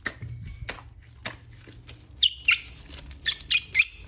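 A few sharp clicks, then a run of five or six short high squeaks in the second half, as plastic toy figures and their packaging are handled.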